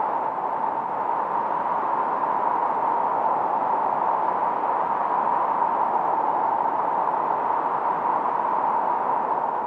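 Noise from a 1972 Minimoog synthesizer's noise generator, run through a Roland RE-501 Chorus Echo: a steady, even hiss, strongest in the middle around 1 kHz, with little deep bass or high treble.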